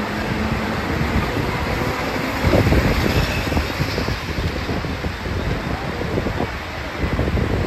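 Steady rumble of a moving vehicle with heavy wind buffeting the microphone.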